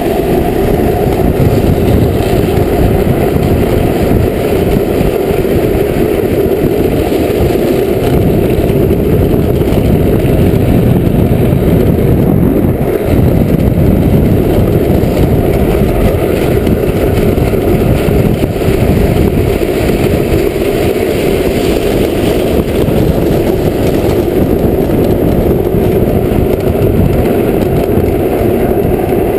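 Unpowered drift trike rolling fast downhill on asphalt: a loud, steady rumble of wind on the rider's camera microphone mixed with the trike's hard rear wheel sleeves running on the road.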